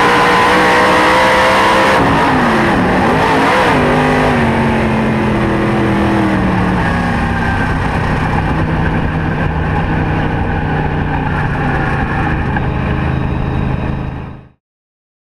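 Dirt late model race car's V8 engine heard from inside the car: the revs waver and fall over the first few seconds, then it runs steadily at lower revs until the sound cuts off abruptly near the end.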